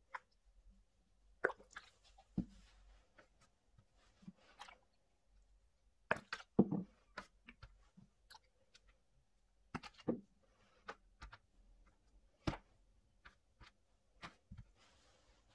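Dyed gym chalk blocks being handled in a thin plastic tray: scattered knocks, taps and plastic clicks at irregular intervals, a few with a soft thud.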